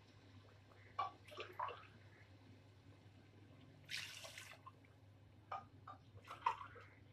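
Water poured from a glass into an aluminium pot of chicken and gravy: a brief splashing pour about four seconds in, with scattered short knocks and splashes before and after it, over a faint steady hum.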